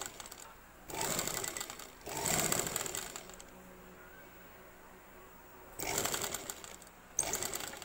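Umbrella sewing machine stitching through cotton cloth in short runs of rapid needle strokes, four runs with a pause of about two seconds in the middle. This is a test seam on a newly fitted needle.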